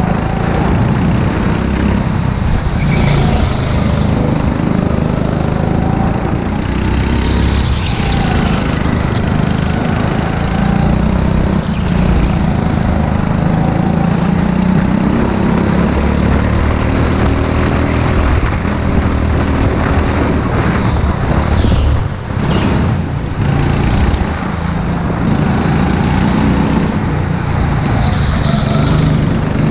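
A go-kart's small engine heard from on board, running hard with its pitch rising and falling as the kart speeds up on the straights and slows for the corners.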